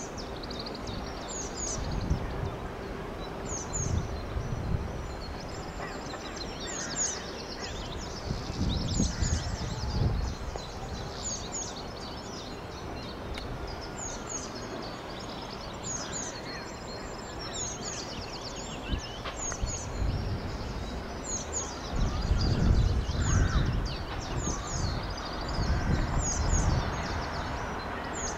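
Small birds chirping over and over in short high calls, with irregular gusts of low rumble from wind on the microphone that are strongest about three-quarters of the way through.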